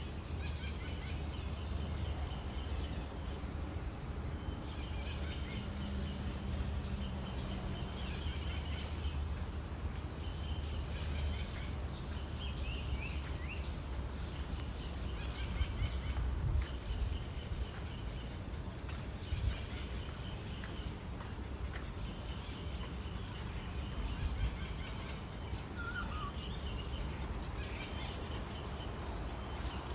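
Cicadas droning in one steady, high-pitched buzz, with short repeated bird calls over it and a low rumble underneath.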